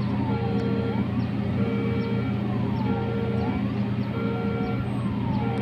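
Steady low drone of a ship's diesel engine. Over it, a repeating pattern of rising and falling whistle-like sweeps and a short held tone comes back about every 1.3 seconds.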